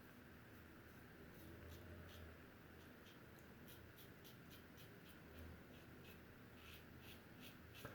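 Faint, short scraping strokes of a double-edge safety razor (King C. Gillette Heritage with a Personna Red blade) cutting lathered stubble, about two to three strokes a second.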